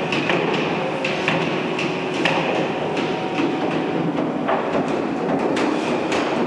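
Cooperage workshop din: irregular hammer blows as coopers work on casks and their metal hoops, several knocks a second at uneven spacing over a steady background of shop noise.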